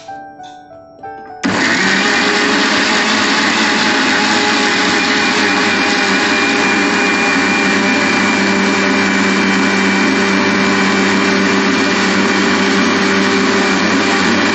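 An electric mixer grinder switches on about a second and a half in and runs steadily and loudly, its motor holding one constant pitch.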